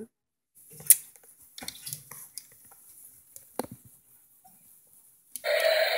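Toy tornado machine's fan motor switched off, leaving a few light clicks and taps from handling the plastic machine, then the fan starts again with a steady hum about five seconds in.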